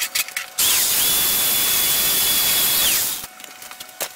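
Handheld power tool spinning up with a rising whine and cutting for about two and a half seconds, then winding down. It is cutting through the steel bolts that hold the old body wood. A few clicks and knocks come before it starts and after it stops.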